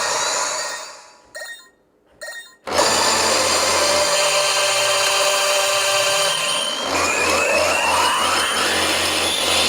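Pachinko machine sound effects: a short drop to near quiet with two brief blips, then a loud, dense electronic noise with a steady high tone and pulsing low beats.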